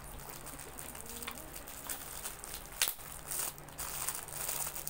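Clear plastic wrapper crinkling and crackling as it is handled and pulled off a small wallet, with one sharper crackle a little under three seconds in.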